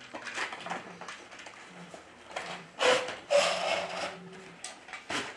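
A toy box being opened by hand: rustling and handling of cardboard and plastic packaging, with a louder rustle about three seconds in.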